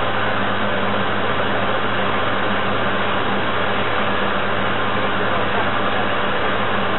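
A model paddle tug's drive and paddle wheels running, heard from a camera on board: a steady whirring drone with a low hum.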